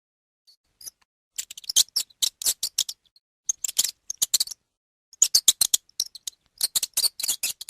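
A small animal's rapid, high-pitched clicking chirps in three quick bursts.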